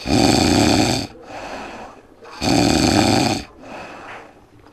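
A man snoring: two loud snores about two and a half seconds apart, each about a second long, with quieter breathing between them.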